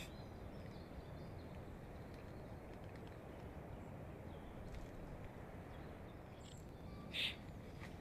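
Faint, steady outdoor background noise from a forest nest camera's microphone, mostly low rumble. One brief sharp sound comes near the end.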